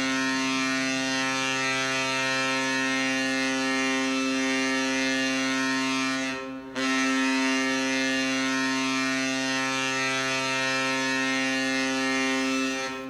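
NHL arena goal horn blowing a long, steady, deep blast at one unchanging pitch. It stops briefly about six seconds in, then sounds a second long blast.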